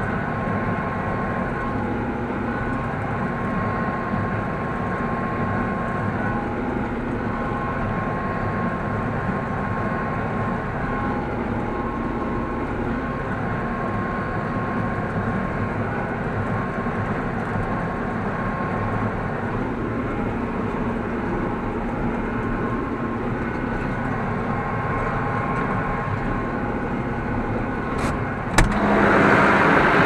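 Massey Ferguson 6150 tractor engine running steadily while pulling a working Welger AP53 conventional baler, heard from inside the cab with a few steady whining tones. Near the end come two sharp clicks, then the machinery sounds louder and harsher.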